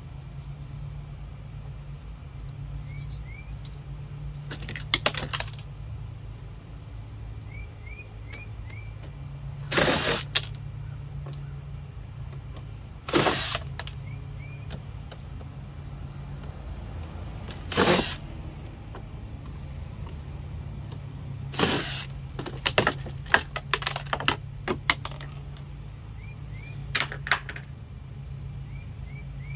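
Cordless drill-driver running in short bursts, each well under a second and spaced several seconds apart, as it drives screws out of the molded plastic body of a Power Wheels ride-on car. Clicks and rattles of handling come between the bursts, with a steady low hum underneath.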